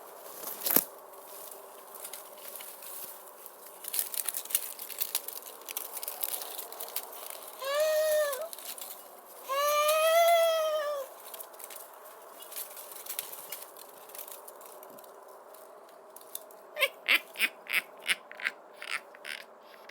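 Spooky sound-effect mix over a low steady drone: a sharp click, a stretch of rustling crackles, then two drawn-out wailing calls that rise and fall in pitch. Near the end comes a quick run of about nine knocks or steps, some three a second.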